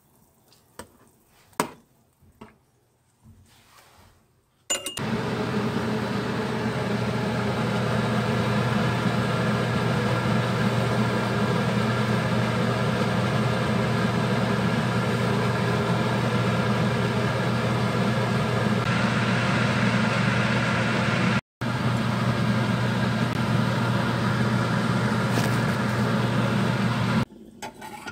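A few light clicks, then a loud, steady kitchen-appliance hum starts suddenly about five seconds in. It cuts out for an instant near the end and stops abruptly just before the end.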